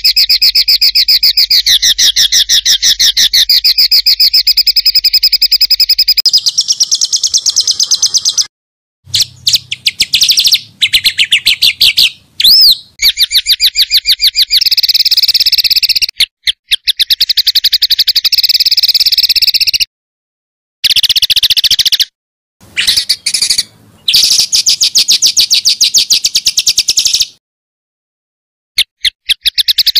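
Songbird calling in dense, rapid-fire 'tembakan' bursts: very fast repeated high notes in runs of several seconds, each cut off abruptly by a short silence. One quick rising and falling whistle about twelve seconds in.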